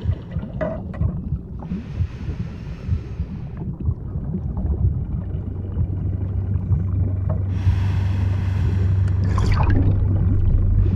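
Underwater ambience: a steady low rumble with gurgling. Two hissing stretches of about two seconds each come early and late, and a short pitched call that rises and falls sounds near the end.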